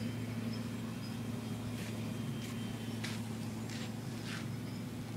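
Distant electric RC aerobatic plane, a Dynam Sbach 342 with a brushless motor and propeller, giving a steady low drone as it flies high overhead. Five short hissing rasps come about every half second in the middle.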